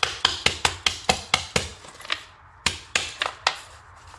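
Rapid sharp knocks of a hand tool striking the stock plastic speaker mount, about four or five a second, with a short pause in the middle before a second run.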